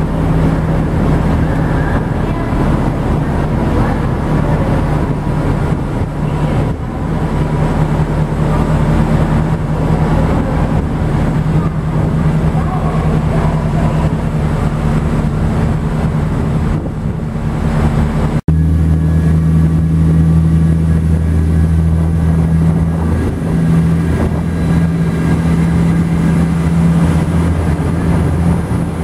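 Renfe Class 599 diesel multiple unit's engines running with a steady low drone as the train moves slowly along the platform. The sound cuts abruptly about eighteen seconds in, and the drone is deeper after the cut.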